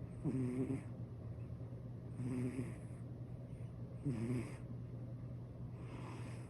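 Senior calico cat snoring in its sleep: four snores, about one every two seconds, each a short buzzing rasp that sounds just like a middle-aged man's snoring.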